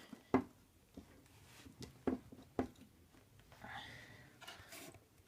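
Metal tin box being handled: a handful of light knocks and taps scattered through, with a soft rustle shortly before the end.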